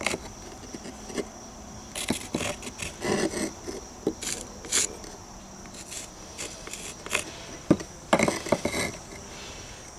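A thin piece of natural stone veneer handled against a stone wall, with scattered taps and scrapes and a carpenter's pencil scratching a cutting line on the stone. A faint steady high insect trill runs behind.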